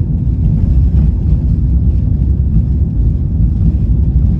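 Steady low rumble of an airplane in flight, even and unbroken.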